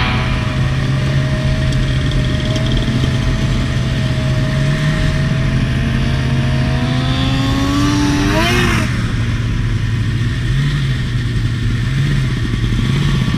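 Snowmobile engine running steadily at low speed. A second, higher whine rises slowly in pitch, wavers and cuts off about nine seconds in.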